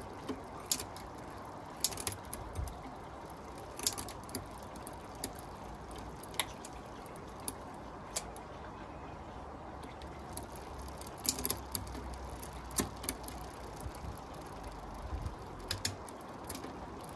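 Bicycle gear shifter clicking and the chain ticking and rattling across the 8-speed rear cassette as the cranks are turned by hand, shifting one gear at a time to test the indexing after the derailleur's adjuster screw was turned. Irregular sharp clicks, bunched together in places.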